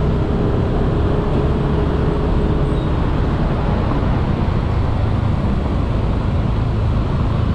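Steady riding noise from a Yamaha Aerox scooter in city traffic: engine, wind and road noise blended into one constant rumble.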